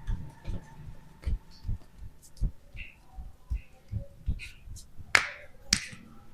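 Joints cracking during a chiropractic adjustment: two sharp cracks about half a second apart near the end, over a steady low thumping at about two and a half beats a second.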